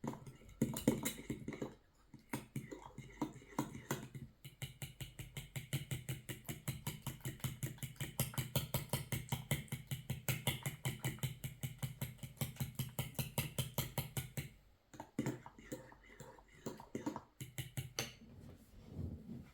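A spoon or whisk stirring four-cheese sauce mix and butter briskly in a pot: a fast, even clatter of about five strokes a second for some ten seconds, with scattered knocks before and after.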